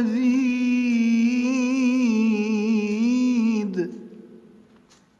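A man's voice in melodic Quran recitation, holding one long, ornamented note that wavers in pitch at the close of the phrase 'lafi khalqin jadid'. The note stops a little after three and a half seconds in, and an echo fades out after it.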